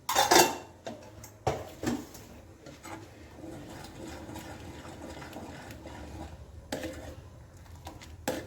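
Metal spoon knocking against a kadhai and stirring a thin besan-and-milk sheera. There is a clatter at the start and a couple more knocks just after, then a steady swishing stir, and sharp taps on the pan near the end.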